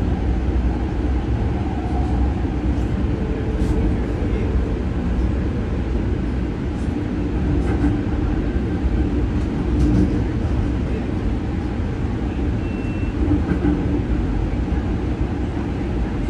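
Steady rumble of an LA Metro light rail car running along the track, heard from inside the car, with a few faint clicks.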